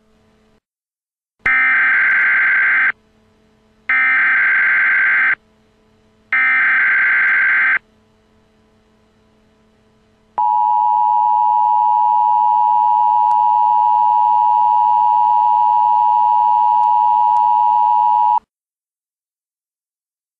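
Emergency Alert System signals: three bursts of SAME header data, each a harsh digital warble of about a second and a half, announce the start of an alert. After a short pause the EAS two-tone attention signal is held steadily for about eight seconds, then cuts off, the cue that the spoken alert message follows.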